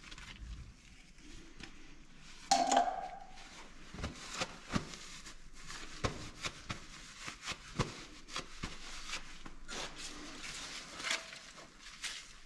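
Hand work on a trailer axle hub. There is one sharp metallic clank with a brief ring about two and a half seconds in, then scattered light clicks and knocks of metal parts and tools being handled.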